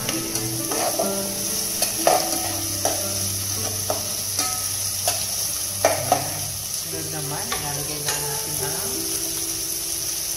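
Onion, garlic and tomato slices sizzling in hot oil in an aluminium pot. A metal spoon stirs them, scraping and knocking against the pot at irregular moments, about once a second.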